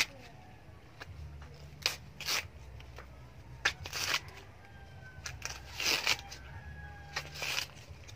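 Green corn husks being torn and peeled off a fresh ear of corn by hand: a series of about six short, dry rips and rustles.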